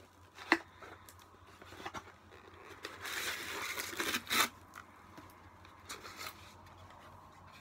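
A small cardboard collectible box and its packaging being opened by hand. A sharp click comes about half a second in, then the packaging tears and crinkles for about a second and a half around the middle, loudest near the end of that stretch. Quieter handling follows.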